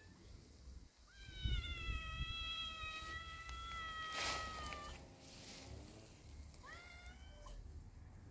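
Cat meowing: one long, drawn-out high call lasting about four seconds, then a fainter, lower call and a shorter high call near the end.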